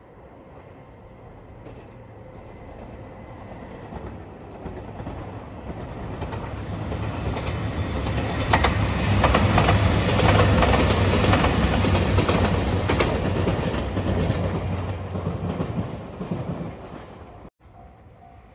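A red Anpanman-liveried train passing on the track. A rumble builds up with wheels clattering over rail joints, loudest in the middle, then fades away.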